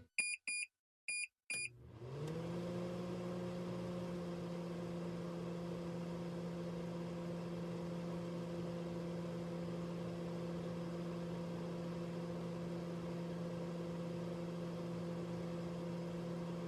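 Four short keypad beeps from a microwave oven, then the oven starts and runs with a steady hum that settles in pitch over its first second.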